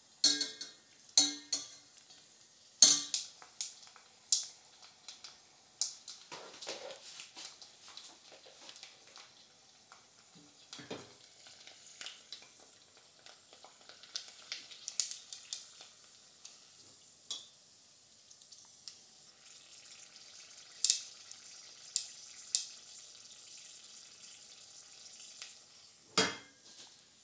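A boiled and dried pig ear deep-frying in hot oil: a steady sizzle with scattered sharp crackles and pops as the skin fries golden and crisp into pork crackling.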